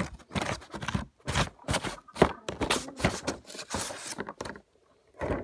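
Cardboard box and clear plastic packaging of a model train car being handled: a quick run of scrapes, rustles and clicks, pausing for about half a second near the end.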